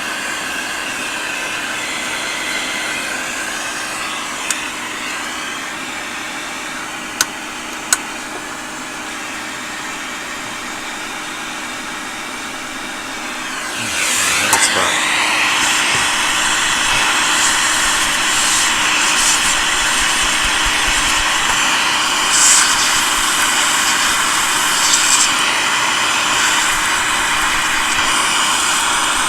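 Vacuum cleaner running steadily as it sucks dust out of an old radio, with a few light clicks in the first half. About halfway through, its pitch briefly dips, then it comes back louder with a higher whine.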